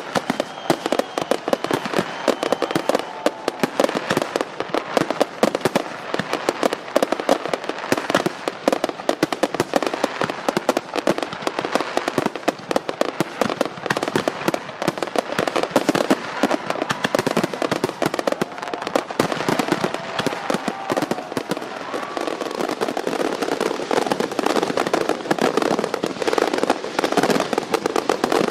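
Fireworks going off in a dense, continuous rapid crackle of many small bangs.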